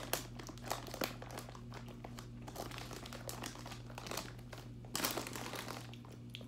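Plastic snack bag crinkling and rustling in irregular bursts, with a louder rustle about five seconds in.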